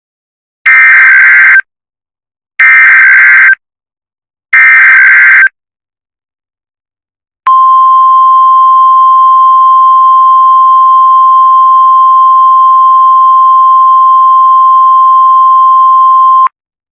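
Emergency Alert System SAME header: three harsh, screeching data blasts about a second long each, then a single steady, piercing alert tone held for about nine seconds that cuts off abruptly. The tone is the NOAA Weather Radio 1050 Hz warning alarm that announces a weather alert.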